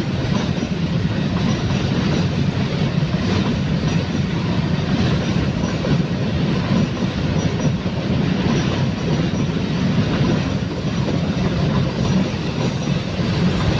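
Coal freight train's wagons rolling past on the rails: a loud, steady rumble with clickety-clack from the wheels.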